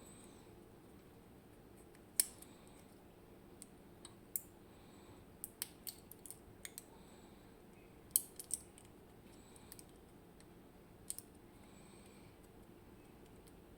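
Small sharp metallic clicks and ticks at irregular intervals, made by tools and parts of a Miwa EC lock cylinder being handled as it is taken apart. The loudest clicks come about two seconds in and about eight seconds in, with a cluster in between.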